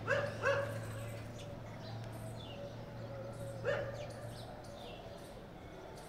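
A dog barking: two quick barks at the start and one more a little before four seconds in. Faint high chirps of small birds are scattered through, over a low steady hum.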